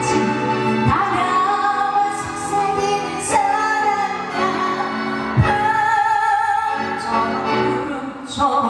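Music: a pop ballad with instrumental accompaniment and a female voice singing, steady throughout.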